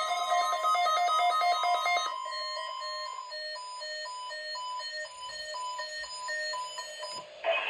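Weather radio alert alarm being tested: about two seconds of rapidly pulsing electronic tones, then a steady tone for about a second, then high and low beeps alternating in quick succession.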